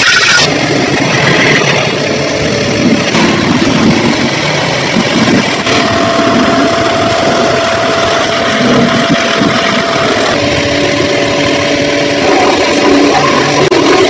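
Pressure washer running, its water jet blasting a washing machine's steel inner drum and plastic outer tub clean of caked dirt; a steady machine drone under the hiss and splash of the spray.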